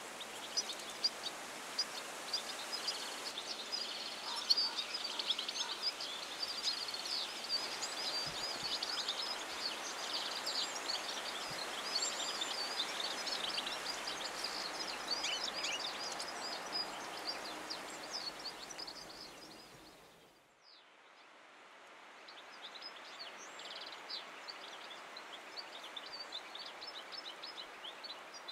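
European goldfinches twittering: a fast, continuous jumble of high chirps and trills over a steady background hiss. It fades out about twenty seconds in and then resumes more quietly.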